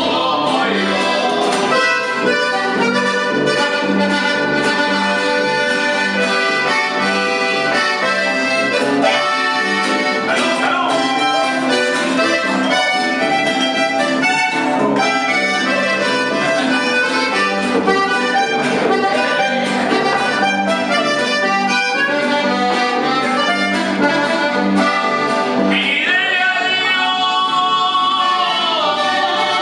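Norteño band instrumental break: button accordion playing the lead melody over guitar and electric bass, with no singing. Near the end the accordion plays a bright run that falls in pitch.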